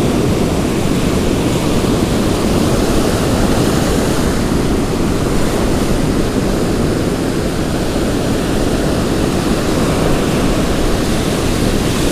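Surf breaking and washing up a sandy beach, a steady rushing noise mixed with wind rumbling on the microphone.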